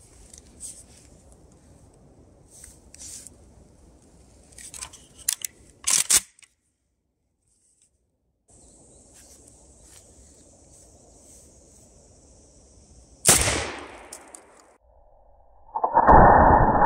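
Saiga-12 12-gauge shotgun fire: after a few light clicks and a gap of dead silence, a single sharp, loud report comes about 13 seconds in and dies away over a second. From about 16 seconds a louder, long, dull blast with no treble takes over.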